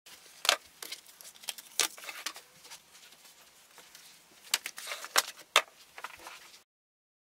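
Boxes of charcoal and a tin of pastels being set down on a cutting mat on a wooden desk: a series of sharp knocks and taps, the loudest about half a second in and again near five and a half seconds, with paper and card rustling between them.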